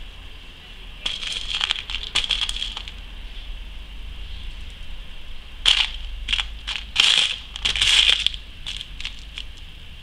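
Loose beads clicking and rattling against one another in a clear plastic box as fingers rummage through them, in two flurries: one about a second in, and a longer one from just past halfway.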